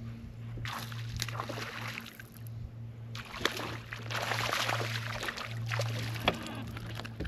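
Water splashing and sloshing beside a boat in two bouts, the second longer and louder, with sharp clicks mixed in, over a steady low hum.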